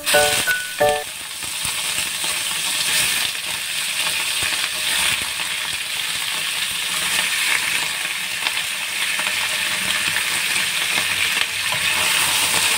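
Chunks of raw beef sizzling in hot oil in a wok with fried ginger slices, a steady frying hiss that sets in about a second in after a few short chime notes.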